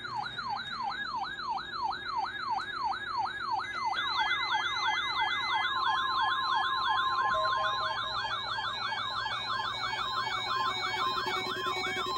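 Siren-style electronic alert alarms from weather radio receivers set off by the NOAA Weather Radio weekly test. A falling wail repeats two to three times a second and is joined about four seconds in by a second, faster wail. About halfway through a steady tone near 1 kHz comes in, the NWR warning alarm tone.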